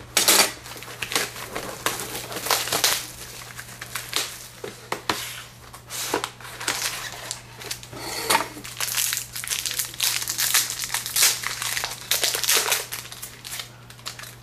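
Plastic wrapping of a Panini Limited hockey card box being torn and crinkled open, in irregular crackling bursts, over a low steady hum.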